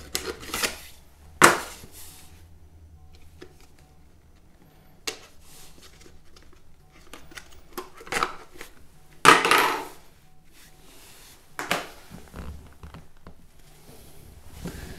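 An SSD's retail packaging being opened and handled: a cardboard box and a clear plastic tray give scattered sharp clicks and rustles. The longest and loudest rustle comes about nine seconds in.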